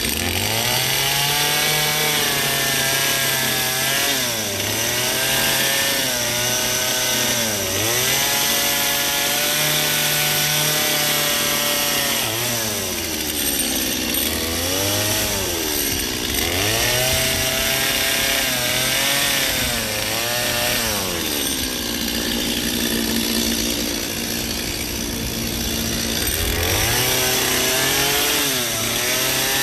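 Gas chainsaw running and cutting ice, its engine pitch sagging and climbing back every few seconds as the chain bites into the block and comes free.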